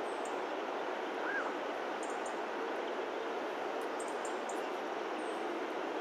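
Steady outdoor background hiss with no clear source, with a short faint chirp about a second in.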